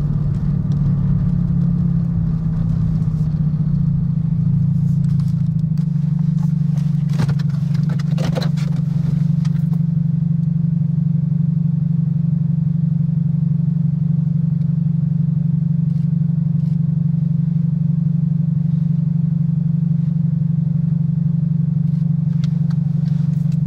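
Car engine running with a steady low drone, heard from inside the car. A lower rumble underneath dies away about five seconds in, and a few brief clicks and rustles come about a third of the way through.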